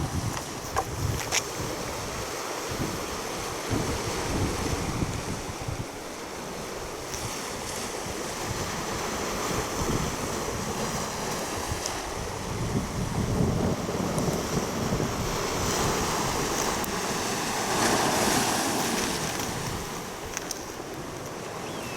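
Sea waves washing and surging, with wind buffeting the microphone in low gusts.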